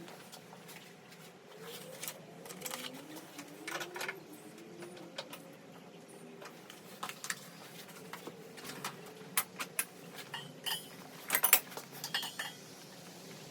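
Small hard parts, most likely metal, clinking and clicking as they are handled. The clicks are scattered at first and come thicker and louder in the second half, loudest a couple of seconds before the end.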